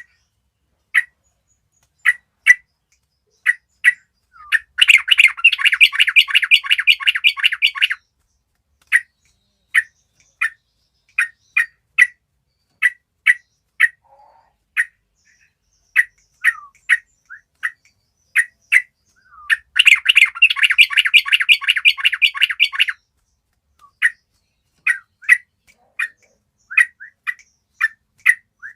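Flock of yellow-vented bulbuls (trucukan) calling: short, sharp notes about once a second, broken twice by about three seconds of rapid chattering. This is a prompt call used to get reluctant cage birds to sing.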